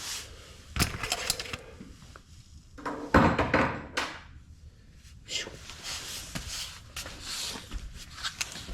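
Handling noises: scattered knocks and clicks with short stretches of scraping or rustling, the loudest about three seconds in.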